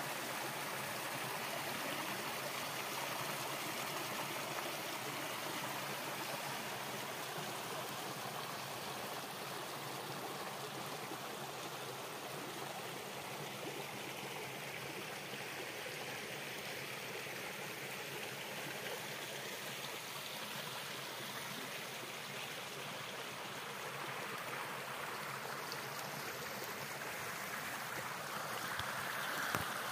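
Small mountain stream flowing steadily, a continuous even rush of water that grows a little louder near the end.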